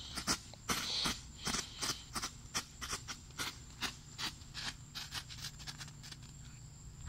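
Strobe fireworks going off in a quick irregular run of sharp pops, about three a second, growing fainter as they burn out.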